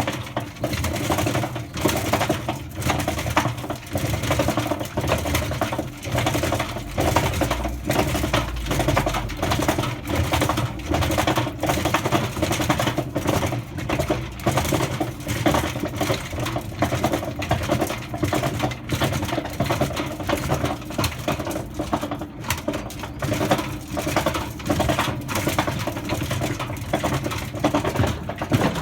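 Hotpoint Aquarius washing machine drum turning on a spin cycle with a plastic toy washing machine tumbling inside it, a continuous rapid clattering and rattling over a steady hum, kicking in suddenly. Under it runs the rough rumble of the machine's worn drum bearings.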